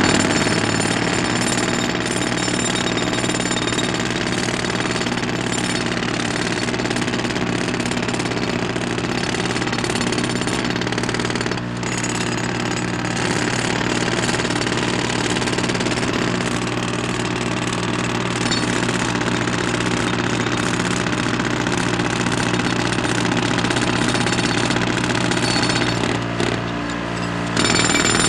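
Jackhammer running continuously in a steady, rapid hammering, with a brief break about twelve seconds in and a short dip near the end.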